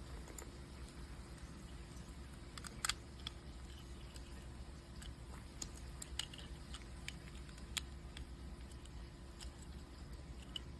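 LEGO plastic pieces being handled and pressed together: scattered small clicks and snaps, the loudest about three seconds in, over a faint steady hum.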